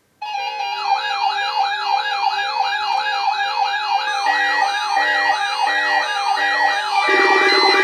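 Several electronic siren tones sounding together, starting abruptly: a yelping sweep repeating several times a second, a fast high warble and a steady pulsing tone. A two-tone hi-lo alternation joins about four seconds in, and a loud harsh buzz about seven seconds in.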